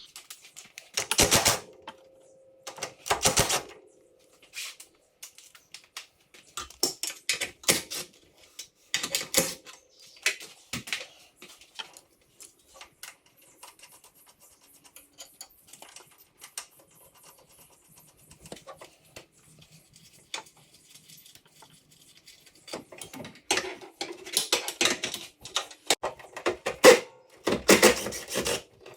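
Irregular clicks, knocks and clanks of hand tools on metal parts during work in a car's engine bay, with one knock ringing briefly about two seconds in, and a denser run of clanks near the end.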